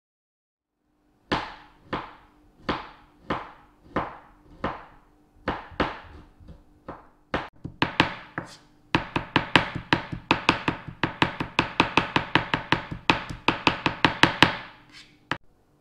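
Chef's knife chopping fresh ginger on a plastic cutting board: slow single cuts about every two-thirds of a second, then fast mincing at about four strokes a second that stops near the end, followed by one last cut.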